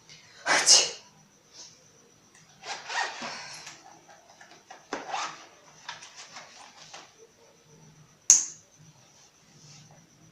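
A person sneezing, several sharp noisy bursts in the first five seconds or so, the first the loudest. A sharp click follows a little after eight seconds in.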